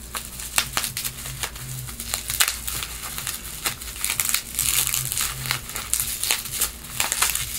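A small gift's wrapping being crinkled and pulled open by hand, in quick irregular crackles.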